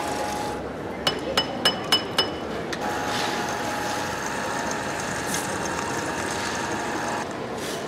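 Five quick, sharp clicks with a short metallic ring, about four a second, followed by a steady held tone over general background hubbub.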